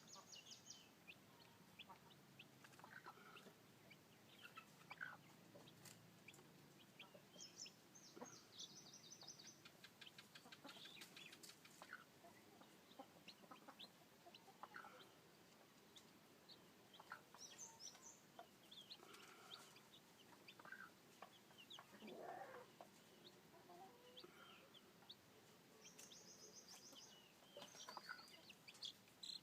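Faint chickens: a flock of newly hatched chicks peeping, in bursts of rapid high peeps every several seconds, with scattered lower clucks and small clicks in between.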